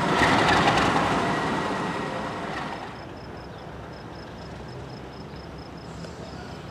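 ALCo RS32 diesel locomotive running close by, a loud rumble and hiss that eases off over the first three seconds. Then a quieter, steady rumble from the yard, with a faint high chirp repeating about four times a second.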